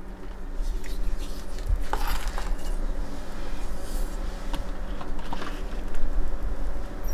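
Metal offset spatula scooping a soft cream cheese mixture from a stainless steel bowl and scraping it into a silicone mold, giving a few light metal scrapes and clinks, over a steady low hum.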